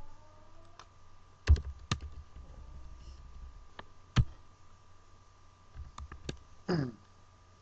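Scattered computer keyboard key presses and mouse clicks, a few sharp separate clicks with the loudest about a second and a half and four seconds in, over a faint steady hum.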